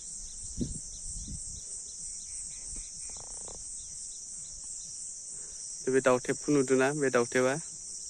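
Steady, high-pitched chorus of insects outdoors, unbroken throughout, with a few faint low bumps in the first second or so.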